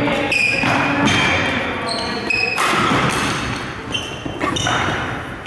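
Badminton rally: court shoes squeaking repeatedly on the sports-hall floor as the players move, with the sharp strokes of rackets hitting the shuttlecock.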